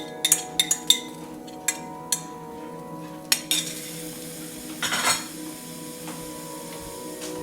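Spoon clinking and scraping in a cooking pot: several sharp clinks in the first couple of seconds, then a longer scrape about five seconds in.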